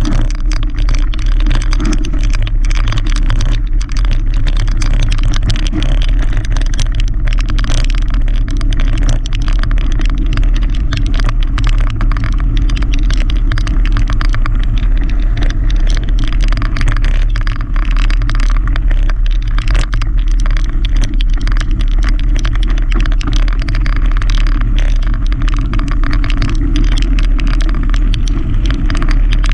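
Mountain bike rolling over a gravel trail: a steady low rumble with a constant crackle and rattle of small clicks from the tyres on loose gravel and the bike shaking.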